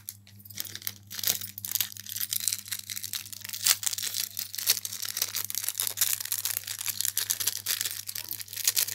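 Continuous crackly rustling and crinkling, irregular and dense, over a steady low hum.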